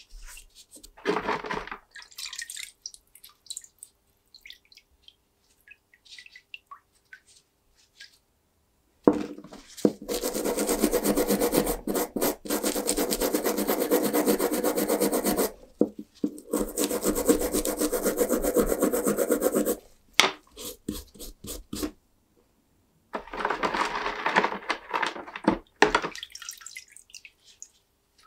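A brush scrubbing a wet, rusty metal fitting hard and fast in two long spells of strokes, with a shorter spell of scrubbing near the end and a brief rub about a second in.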